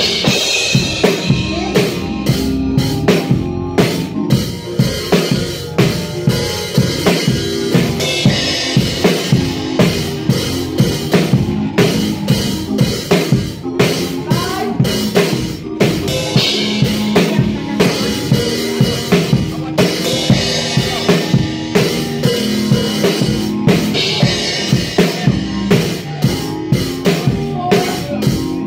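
Drum kit played in a steady, busy groove, with snare, bass drum and hi-hat hits throughout and cymbal washes every few seconds. Sustained low instrumental notes run underneath the drumming.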